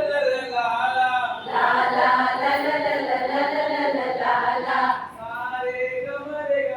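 Voices singing a Hindi action song unaccompanied. About one and a half seconds in, the singing becomes fuller and louder, like a group of voices joining, and it thins back to a clearer line near the five-second mark.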